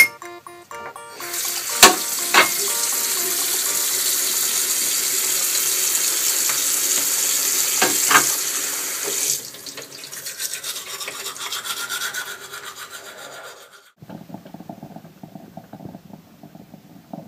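Bathroom tap running hard into a sink for about eight seconds, with a few sharp knocks, then shutting off. Quieter scrubbing and rubbing follows, and near the end a drip coffee maker gurgles softly.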